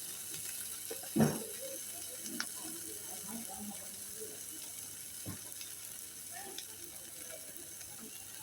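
Vegetables and noodles frying in a pan, a steady sizzle, with a knock about a second in and a few lighter clicks.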